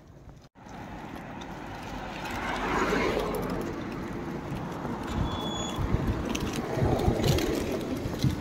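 Street traffic: a car passes on the road, its noise swelling to a peak about three seconds in, followed by steady road noise.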